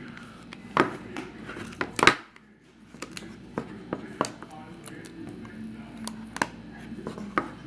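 Scattered sharp clicks and taps of small tools and iPhone 6 Plus parts being handled and pressed together during reassembly, about seven in all.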